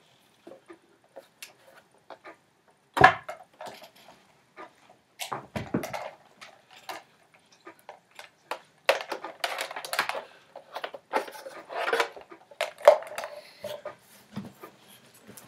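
Handling noise: scattered knocks, clicks and clatter as a plastic sewing machine is moved and turned around on a table. The loudest is a sharp knock about three seconds in, and the clatter is busiest in the second half.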